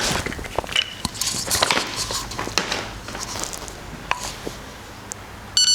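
Whole coffee beans clicking and rattling as they are poured and handled while being weighed out, the clicks thick at first and then sparse, followed near the end by a short electronic beep.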